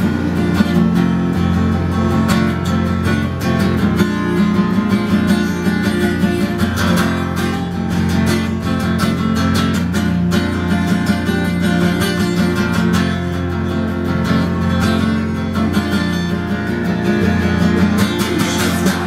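Solo acoustic guitar strummed in a steady rhythm, the instrumental introduction to a song.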